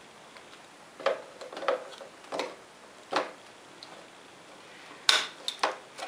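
Hard plastic clicks and knocks from the back panel and stand mount of an LCD monitor being handled: a few scattered taps, then a sharper knock about five seconds in.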